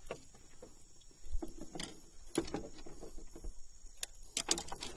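Irregular light knocks and clicks on a wooden boat as a landed snakehead is handled on a fish grip, with a faint low rumble underneath.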